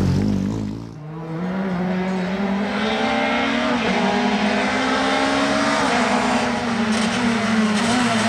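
Peugeot 208 R2 rally car's naturally aspirated 1.6-litre four-cylinder engine running hard as the car approaches along a stage. The engine note climbs slowly, then falls near the end.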